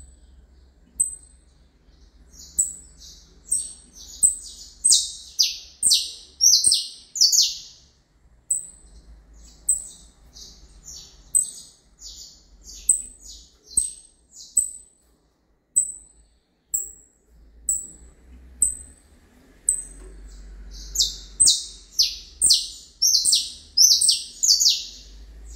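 Caged saffron finch (canário-da-terra) singing: sharp, high chip notes about once a second. Two runs of louder, quicker song notes come in, one a few seconds in and one near the end.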